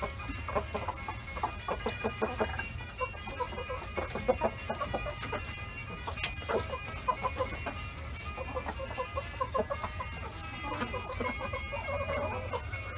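Chickens clucking, a steady run of short calls throughout.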